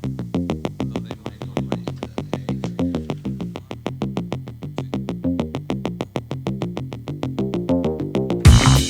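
Electronic background music: a synthesizer plays a fast, even run of short plucked notes, about six a second. Near the end, drums and bass come in and the music gets louder.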